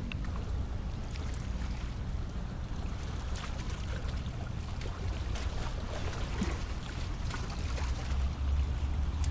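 Steady outdoor sea ambience: a low rumble of wind on the microphone over lapping water, with a few faint ticks in the middle.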